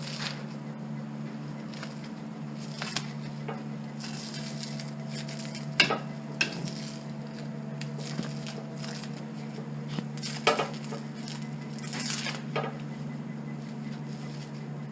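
Scattered metallic clinks and clicks of tools and bolts being worked loose while the handle is unbolted from a metal shark tooth sifter basket, the sharpest about six seconds in and again about ten and a half seconds in, over a steady low hum.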